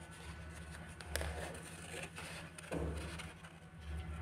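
Scissors snipping through drawing paper, with the sheet rustling as it is turned, a few faint snips over a steady low hum.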